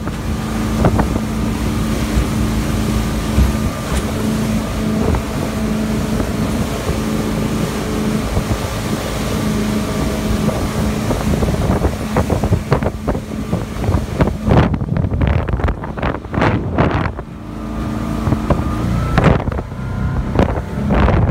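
Four Winns 224 Funship deck boat's engine running steadily under way, over rushing water and wind. Wind buffeting on the microphone swells for a few seconds about two-thirds of the way through and again near the end.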